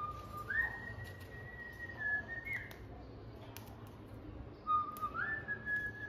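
Cockatiel whistling: two whistled phrases, each a lower note that steps up to a higher note held for about a second and a half, the first ending with a quick rise and drop.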